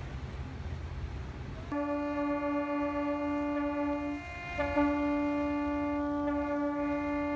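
A low rumble, then about two seconds in several boat horns start sounding together in long steady blasts, greeting the arriving trimaran; the lowest-pitched horn breaks off briefly about four seconds in and sounds again.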